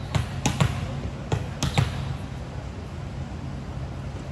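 A volleyball bounced on a gym floor about six times in quick succession in the first two seconds, then stopping: a server's bounces before the serve.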